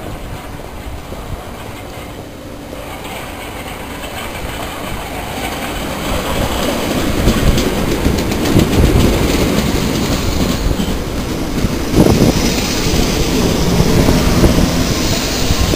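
Electric commuter train running into the station: its rumble grows louder as it approaches, then the wheels clack steadily over the rail joints as the carriages slide past and slow. There is a single louder knock about twelve seconds in.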